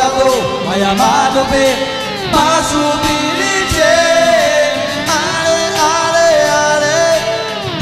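A rock band playing a song with a lead voice singing in Paiwan over electric guitar and drums.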